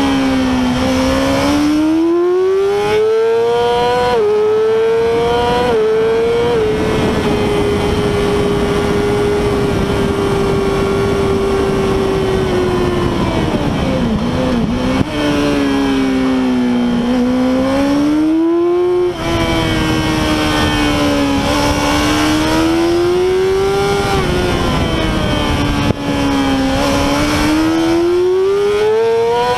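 Yamaha YZF-R6's 600 cc inline-four engine screaming at high revs on track: the pitch climbs through quick upshifts, holds steady for several seconds, falls away as it is shifted down, then climbs hard again twice. A steady rushing noise runs beneath it.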